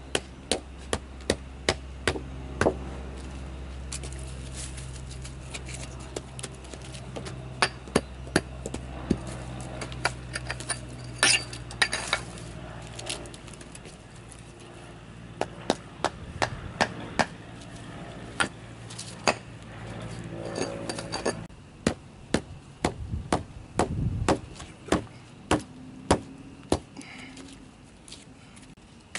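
Small hatchet striking a wooden pole again and again, chopping and notching it: sharp, irregular knocks in quick runs with short pauses between. A low steady drone sits underneath for the first half.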